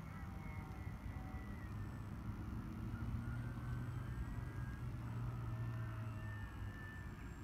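Electric motor and propeller of an FMS PC-21 Pilatus RC plane whining in flight, its pitch sliding slowly up and down as it passes, over a low steady rumble.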